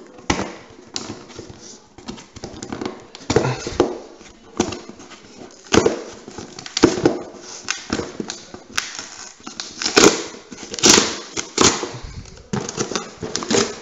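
Cardboard shipping box being torn open by hand: its sealed flap and tape ripping and crackling in irregular bursts, the loudest about ten and eleven seconds in.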